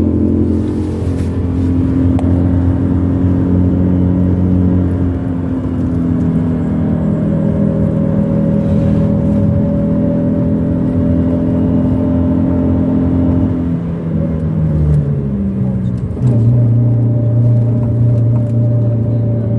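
Motor vehicle engine running while driving along: a steady hum whose pitch shifts about five seconds in. About three-quarters through, the pitch sinks and then steps back up, a little louder.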